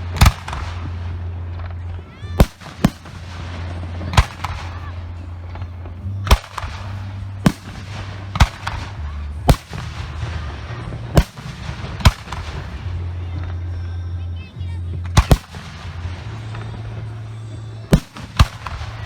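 Professional aerial firework shells going off in a display: about fourteen sharp booms, roughly one a second and some in quick pairs, with crackling between them and a steady low rumble underneath.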